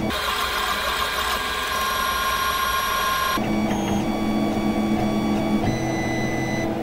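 3D printer's stepper motors whining in steady tones as the print head lays down a part, the set of pitches switching abruptly a little over three seconds in and again near the end.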